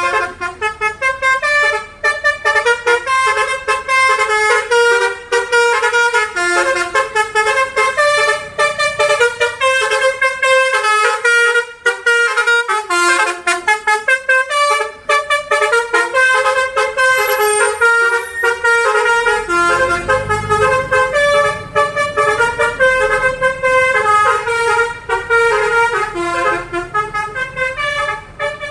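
Basuri telolet horn, a multi-trumpet melody horn, playing a long tune of stepped notes without a break. A low rumble joins in about twenty seconds in.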